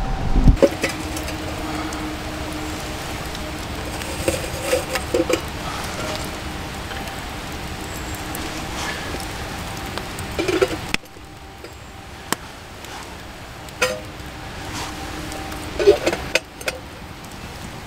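Firewood sticks being laid around a tin can oven in a smoky campfire, knocking and clinking against the can and each other in a few short clusters. The background hiss drops at a cut about eleven seconds in.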